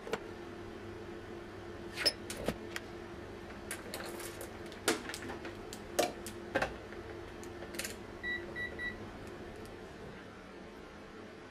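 A scatter of sharp clicks and knocks over a steady hum, followed a little after the middle by three short, quick, high-pitched electronic beeps.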